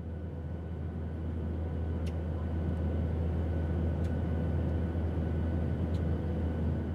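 Steady low drone of ship's engine-room machinery, swelling up over the first two seconds, with a faint tick about every two seconds.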